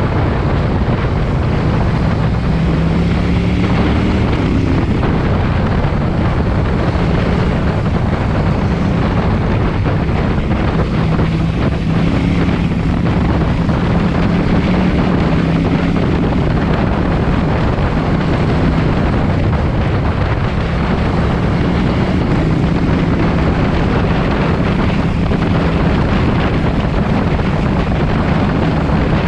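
KTM 790 Duke's parallel-twin engine through an SC-Project exhaust, running steadily under way with small rises and falls in engine pitch, and wind noise on the microphone throughout.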